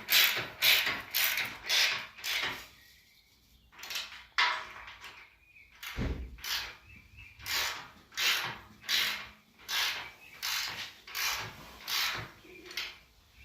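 A hand ratchet wrench worked back and forth in quick, even strokes, about two to three a second. The strokes stop briefly a few seconds in, then go on, with one low thud midway.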